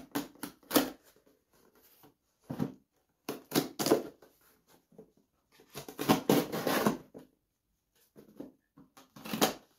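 A cardboard box being cut and pulled open with a small knife: a series of short scraping, tearing and rustling noises, the longest stretch about six to seven seconds in.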